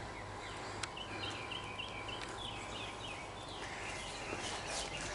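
A bird singing a quick run of short repeated chirps, followed by a few falling notes, over steady outdoor background noise.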